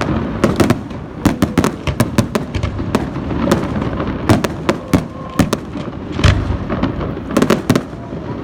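Fireworks display: a dense run of sharp crackling reports over deep rumbling booms, with a heavy low boom about six seconds in.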